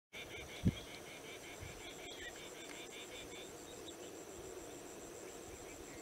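Grassland insects chirping: a rapid pulsed chirping for about the first three and a half seconds over a steady high-pitched trill that continues throughout. A brief low thump sounds under a second in.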